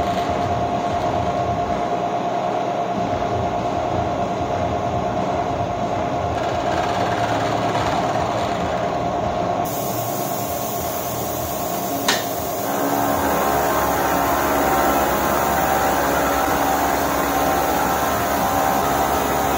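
Milling machine cutting a cast iron block: a steady machining run with a constant mid-pitched tone. About ten seconds in, a high hiss from the mist coolant spray joins. A click comes a couple of seconds later, after which the cutting grows a little louder with more tones in it.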